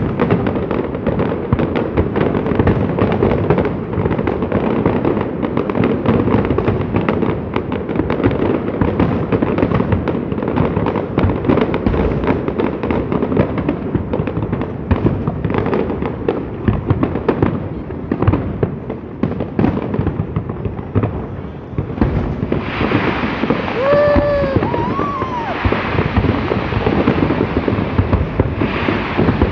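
Fireworks display: a continuous dense crackle and banging of many shells bursting. Near the end a brief pitched rise-and-fall sound rises above the noise.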